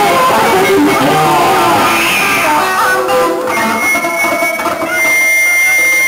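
Loud live noise rock: a drum kit pounded close up with an electric bass guitar playing through it in a dense, continuous wall of sound. A high steady tone comes in about four seconds in and holds.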